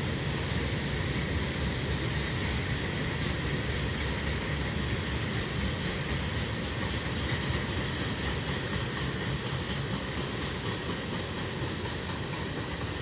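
Freight cars rolling past on the rails: a steady rumble of wheels on track, easing slightly near the end as the last cars go by.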